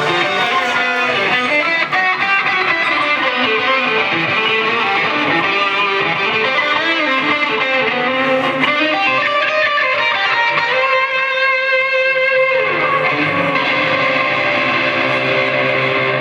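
Live rock band playing an instrumental passage led by electric guitar through effects, with bass and drums underneath.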